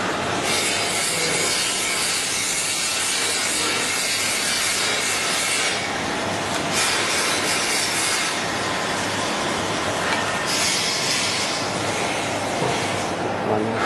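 Circular saw blade grinding machine running, with a steady mechanical noise under a high hiss from the grinding wheel on the blade. The hiss comes in three passes of a few seconds each.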